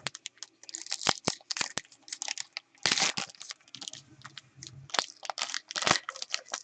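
Crinkling and crackling of a foil trading-card pack wrapper being handled and torn open, in a quick run of sharp crackles and crisp rustles.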